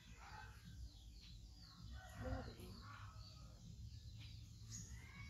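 Small birds chirping faintly, with a brief chicken cluck about two seconds in.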